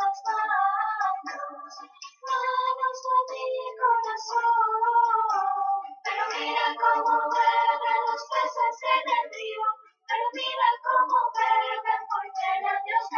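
A high voice singing a slow melody in phrases, with a short break between phrases about every four seconds.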